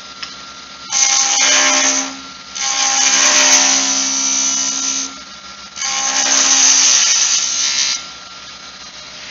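Wood lathe running steadily while a skew chisel cuts the spinning wooden spindle in three passes: a short one about a second in, then two longer ones of about two to two and a half seconds each, every cut a loud hiss over the lathe's hum.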